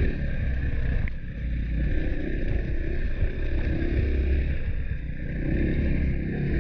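KTM 500 EXC-F single-cylinder four-stroke dirt bike engine running on the move, heard from the bike itself, its level easing off briefly about a second in and again near five seconds as the throttle is rolled off and back on.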